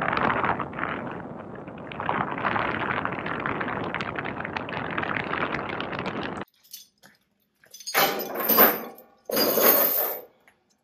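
Steady rushing road and wind noise of a pickup truck driving with its window down, cut off abruptly. Then come two loud clattering noises about a second long each, a little over a second apart, and these are the loudest sounds.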